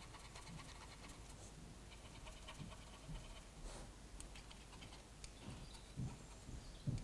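Faint scratching of a cotton bud rubbing the windows of a model locomotive, with a few soft handling knocks near the end.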